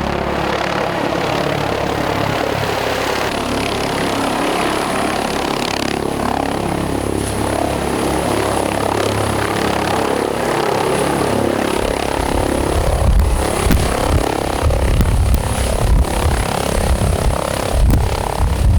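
Helicopter running with steady rotor and engine noise, loud and continuous; about twelve seconds in, a heavier, uneven low rumble joins it.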